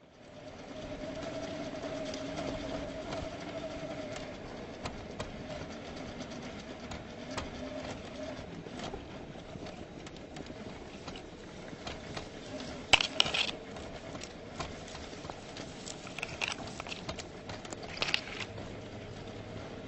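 A 1/10-scale RC rock crawler's electric motor and gearbox whining steadily as it crawls over sand and gravel, with tyres crunching and ticking on small stones. A few sharp clacks stand out, the loudest about 13 seconds in and again near 18 seconds.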